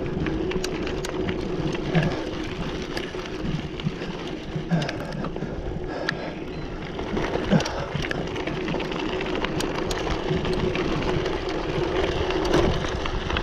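Mountain bike rolling down a dirt trail: the tyres run over packed dirt and loose grit as a steady noise with a faint hum, while the bike gives off frequent small clicks and rattles over the bumps.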